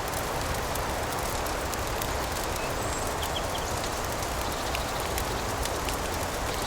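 Fireplace crackling: many small, sharp pops and crackles over a steady rushing noise.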